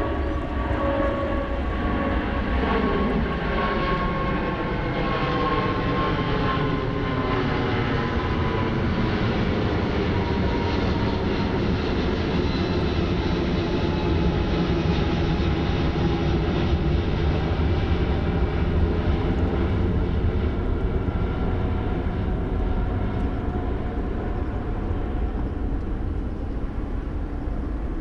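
Jet airliner's turbofan engines at takeoff power, a steady rumble with a whining tone that slowly falls in pitch as the plane climbs past and away.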